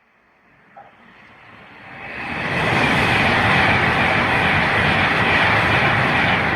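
A train approaching and passing close by: faint at first, building over about two seconds to a loud, steady rush of wheel and rail noise.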